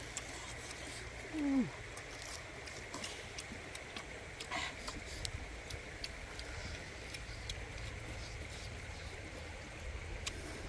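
Close-up eating sounds: biting and chewing boiled chicken, with small wet clicks and lip smacks, over a steady background of running stream water. About a second and a half in there is a brief vocal sound that falls in pitch.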